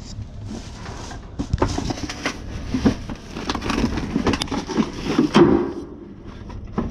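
Rustling, cracking and clattering of junk being handled and shifted, in irregular bursts that run busiest from about a second and a half in until near the end.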